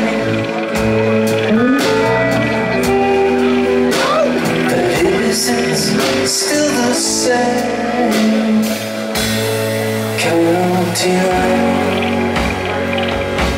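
Rock band playing live: a man singing over electric guitar, bass guitar and drums with cymbal crashes.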